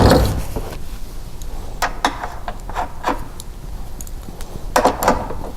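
Scattered light clicks and knocks of a push mower's wheel and its bolt being handled and fitted by hand, with a short cluster of louder clicks near the end.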